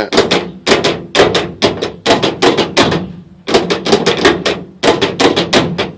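B&M ratchet shifter lever being slapped through its gates, a run of sharp clicks and clacks in about four quick clusters. The shifter is not yet hooked up to a transmission, so only the shifter's own mechanism is heard.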